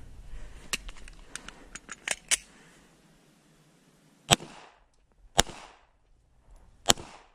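Glock pistol fired three times, about a second and then a second and a half apart, each shot sharp with a short ring after it. A few lighter clicks and knocks come before the shots.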